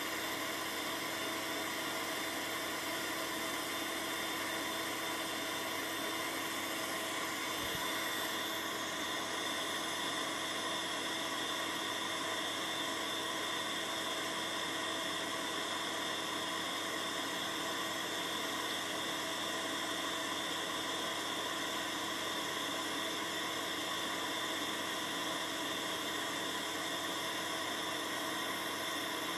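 Steady buzzing hum with hiss, unchanging throughout: background noise of a VHS tape playing through a TV set.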